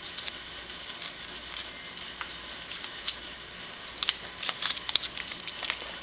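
Pot of tomato seafood stew heating on the stove, with scattered small pops and crackles over a steady faint hiss.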